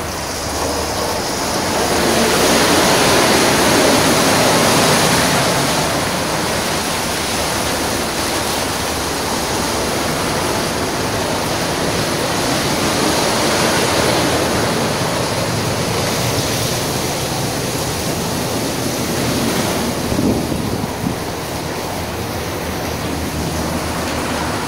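PDQ ProTouch Tandem soft-touch car wash running, with its spinning foam-cloth brushes scrubbing a soap-covered SUV amid water spray. It makes a steady rushing wash of water and brush noise, loudest a few seconds in.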